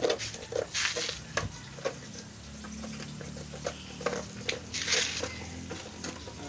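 Belgian Malinois puppies moving about and scuffling: scattered pattering, short scratchy rustles and small knocks. A faint low drone runs under the middle seconds.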